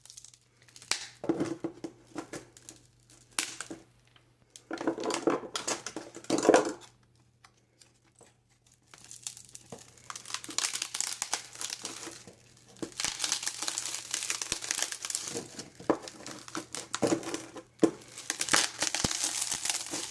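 Glued screen of a Samsung Galaxy Tab 4 being pried and peeled away from the tablet: irregular crackling and crinkling of the adhesive and plastic as it tears loose, in bursts with short pauses and a few sharp clicks.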